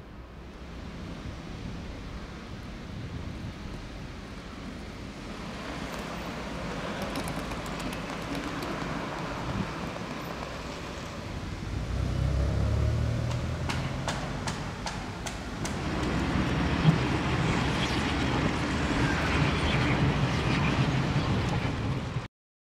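Street traffic ambience: cars passing, with a deeper vehicle rumble about halfway through and again in the last third, growing louder overall. It cuts off abruptly near the end.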